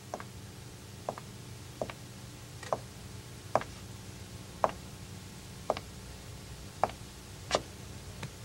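Slow footsteps, about one step a second and not quite evenly paced, growing louder over the first few seconds as someone approaches, over a faint low steady hum.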